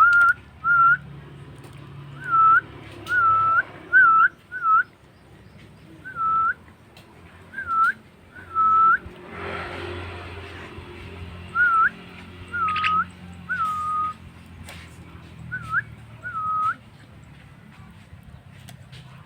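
Short, clear whistled notes at one pitch, each dipping and then turning up, repeated in irregular groups of one to three. A brief rustle sounds about halfway through, and the whistles stop a couple of seconds before the end.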